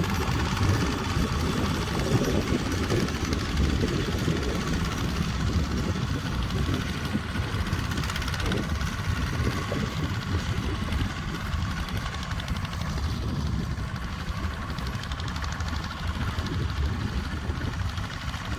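Tractor engine running steadily, a little quieter in the last few seconds.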